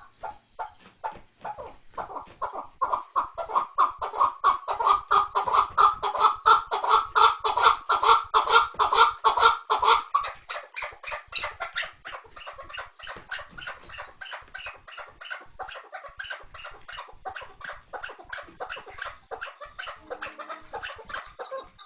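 Chukar partridge calling: a long, rapid run of repeated chuck notes, several a second, growing loud about two seconds in and dropping to a softer run of calls about ten seconds in.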